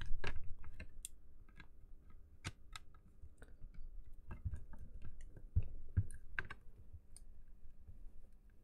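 Irregular plastic clicks and small knocks from a PocketBook 614 e-reader's plastic case being pressed together by hand, its latches snapping in as the top part is fitted. The loudest clicks come right at the start, with scattered ones after.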